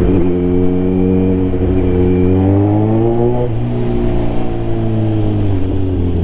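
Kawasaki Z900 inline-four engine running through a full Mivv carbon exhaust system under way. The revs climb for about a second around the middle, then drop sharply and hold steady again.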